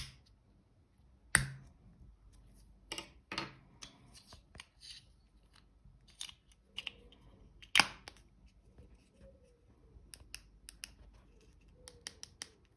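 Small sharp plastic clicks and light knocks from a car remote key fob being reassembled, its battery holder and plastic shell halves pressed and snapped together. Two clicks stand out as the loudest, one about a second in and one past the middle, with softer ticks and handling rubs around them.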